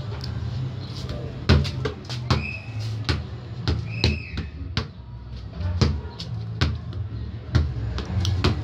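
A football being kicked and bouncing on a concrete floor: a series of sharp thumps, about one a second, over a low hum.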